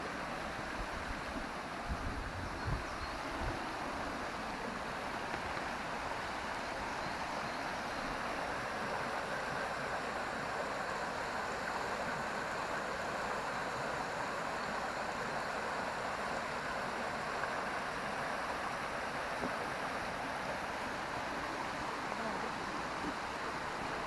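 Stream running, a steady even rush of flowing water. A few low bumps come about two to three seconds in.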